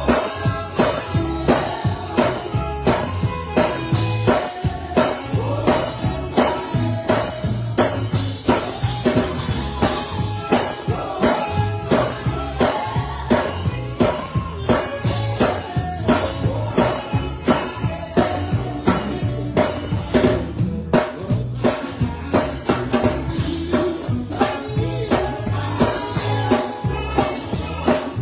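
Live gospel band playing with a steady drum-kit beat, bass and singing.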